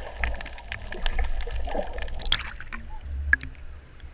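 Seawater sloshing and bubbling around an action camera held underwater, with a sharp splash a little over two seconds in as the camera breaks the surface.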